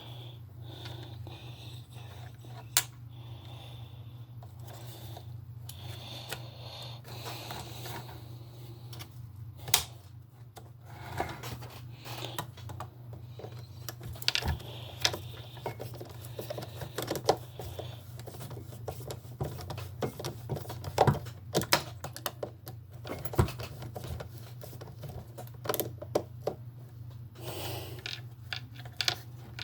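Plastic parts of a toy RC Hummer being handled and fitted together, giving scattered, irregular clicks and taps over a steady low hum.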